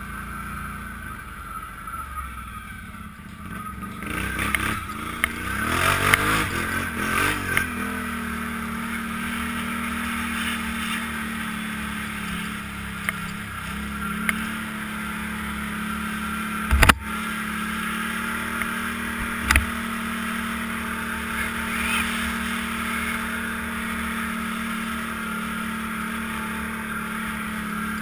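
An ATV's engine running under way, its revs rising and falling between about four and eight seconds in, then holding steady. Two sharp knocks come in the second half.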